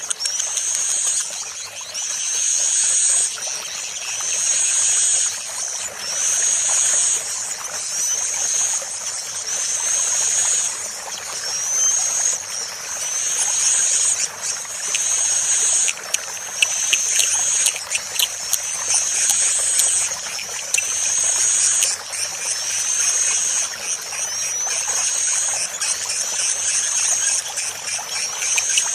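Recorded bird call played as a lure: a short high-pitched curving call phrase repeating about every two seconds over a steady background hiss, with quick chattering ticks joining in the second half.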